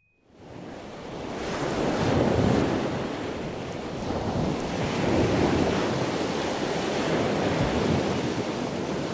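Ocean surf washing onto a beach, with wind buffeting the microphone. It fades in from silence within the first second, then swells and ebbs slowly.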